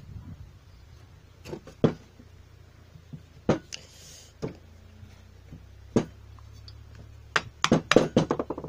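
Sharp knocks and taps of a metal claw hammer and its solid iron bar handle being handled and set down on a wooden workbench, a few single knocks and then a quick run of taps near the end.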